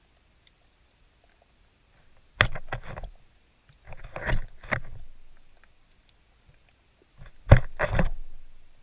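Wels catfish feeding on a bait underwater: three bursts of sharp clicks and knocks as it sucks in and mouths the bait, the loudest near the end.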